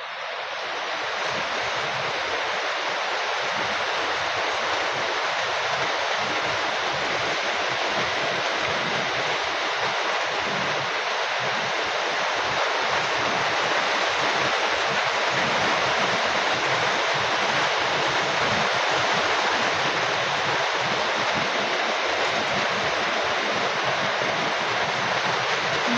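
Heavy rain falling: a steady, dense hiss with a patter of drops underneath.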